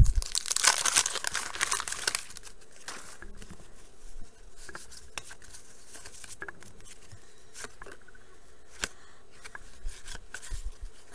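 A wax-paper pack of 1989 Bowman baseball cards torn open, a sharp rip followed by about two seconds of dense crinkling, then soft scattered ticks and rustles as the cards are handled.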